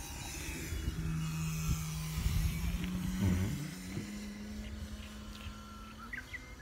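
Steady motor hum, its pitch rising slightly a little after two seconds in and holding until near the end.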